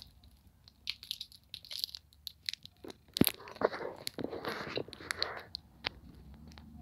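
A person biting into and chewing a cherry Airheads taffy bar, with scattered small clicks, one sharp click about three seconds in, then a couple of seconds of chewing noises.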